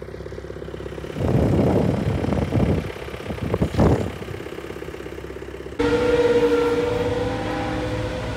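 Engine-driven snowblower attachment running with a steady mechanical hum, with loud bursts of rushing noise from about one to four seconds in. About six seconds in the sound cuts abruptly to a louder, steady, higher-pitched machine whine.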